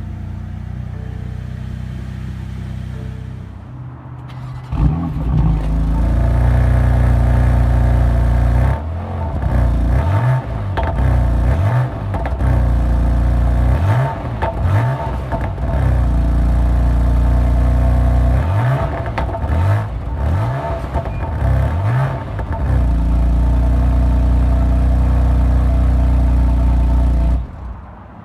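2017 BMW M4 Competition's twin-turbo 3.0-litre six-cylinder engine and exhaust, idling and then much louder from about five seconds in. Through the middle it is revved up and down again and again, with steady loud stretches between the revs, and it stops abruptly near the end.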